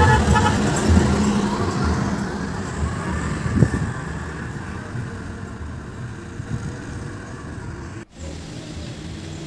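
Engine and tyres of an odong-odong, a converted minibus tourist vehicle, passing close by and fading away down the road, with a single short knock about three and a half seconds in.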